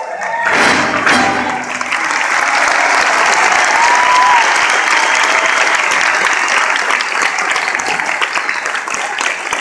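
Large theatre audience applauding as the music ends about half a second in, a dense, steady clapping with scattered cheers and a short whistle near the middle.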